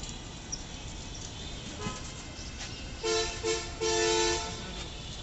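A vehicle horn honks three times, two short toots and then a longer one, over steady background noise.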